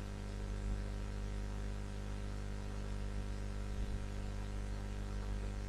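Steady low electrical hum with a layer of hiss, unchanging throughout.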